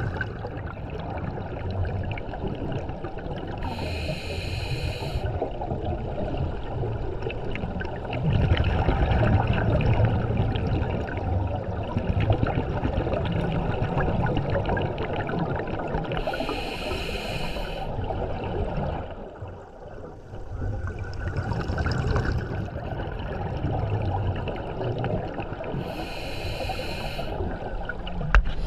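Diver's breathing underwater: continuous bubbling and rumbling of exhaled gas, with a hiss of breathing gas through a regulator about every ten seconds, three times.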